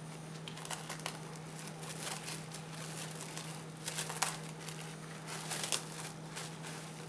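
Plastic cling film crinkling and crackling as it is pulled and folded around a ball of dough. It comes in several short bursts, the loudest about four seconds in, over a steady low hum.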